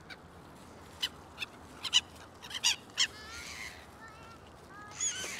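Gulls calling over a flock being fed bread: a string of short, sharp cries, then several short falling squeals in the second half.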